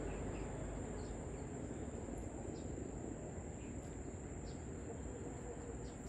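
Steady, high-pitched drone of insects over a low, even outdoor background noise, with a few faint short chirps scattered through.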